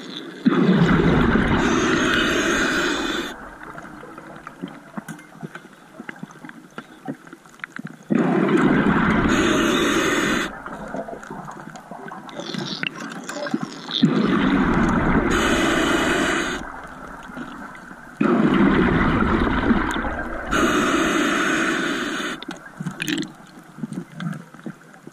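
Scuba diver breathing through a regulator underwater on air. Four loud bursts of exhaled bubbles come about every five to six seconds, each lasting two to three seconds, with quieter stretches between breaths.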